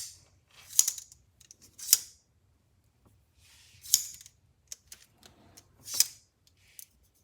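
Pocket multitool being worked by hand, its tools flicked open and snapped shut: about five sharp metallic clicks one to two seconds apart, with fainter ticks between.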